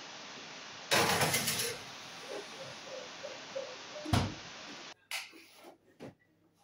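A baking dish slid onto the rack of a Bosch oven with a scraping clatter about a second in, then the oven door shut with a heavy thud just after four seconds. A steady hiss runs underneath and cuts off suddenly about a second after the door closes.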